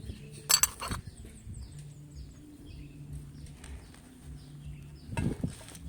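A sharp clatter of hard parts being handled about half a second in and another near the end, with small birds chirping repeatedly in the background and a faint low hum.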